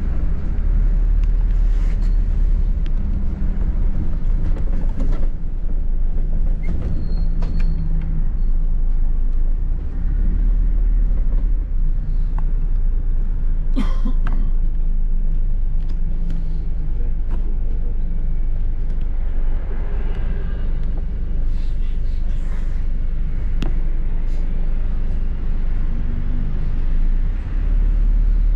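Double-decker bus on the move, heard from inside: a steady low engine and road rumble with scattered knocks and rattles from the bodywork, one sharp knock about halfway through.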